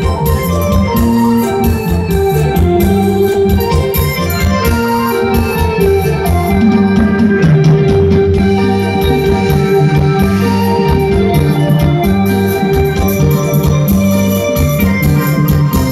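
Loud live band music: the instrumental introduction of a Thai Isan-style song, led by an electronic keyboard with an organ sound over a steady drum beat.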